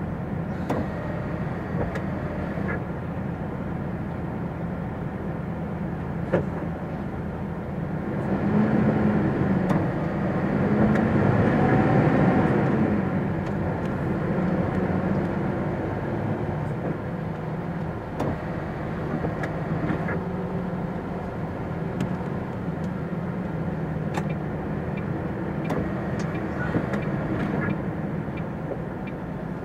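Lorry diesel engine running at low speed, a steady drone that grows louder for a few seconds about eight seconds in, then settles back.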